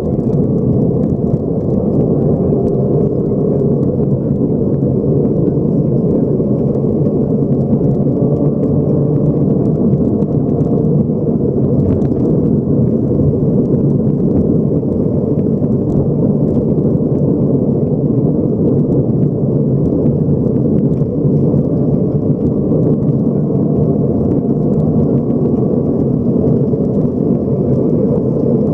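Subaru rally car at speed on a gravel stage, heard from inside the cabin: a loud, steady rumble of engine and tyres on gravel, with frequent ticks of loose stones.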